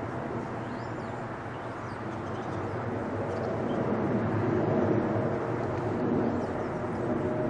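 The four GEnx-2B turbofan engines of a Boeing 747-8F freighter climbing out after takeoff: a steady, deep jet rumble that swells louder about halfway through.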